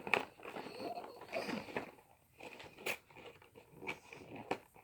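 Plastic toy packaging being handled and opened: a few sharp clicks and snaps with light rustling between them.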